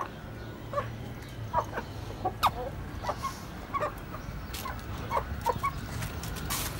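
Aseel chickens clucking: many short, separate clucks from several birds, a few louder than the rest. A brief rustling noise near the end.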